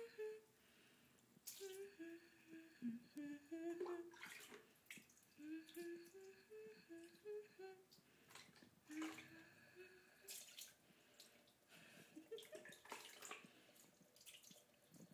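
A person humming a simple tune in several short phrases of held, stepping notes, with water dripping and splashing now and then.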